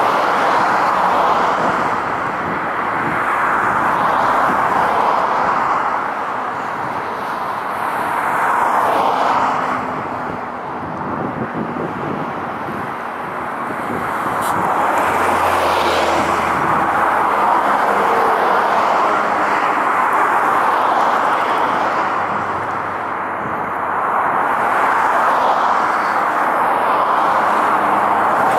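Jet engines of an Airbus A330-300 airliner on final approach: a steady roar that swells and eases every several seconds.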